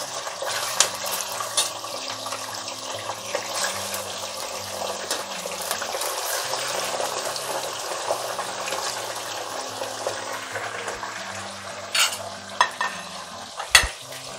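Raw chicken pieces sizzling and crackling as they fry in hot mustard oil in a kadai. Near the end come a few sharp knocks, typical of a spoon striking the pan while stirring.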